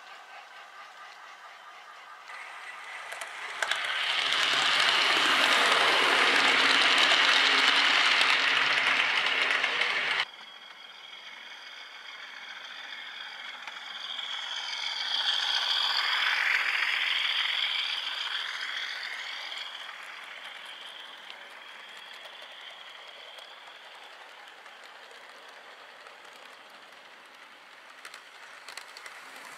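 OO gauge model train running on track: the motor whirs and the wheels rattle over the rails, swelling loud as it passes close and cutting off suddenly about ten seconds in. A second pass swells and fades a few seconds later, then a quieter steady run as the coaches roll by.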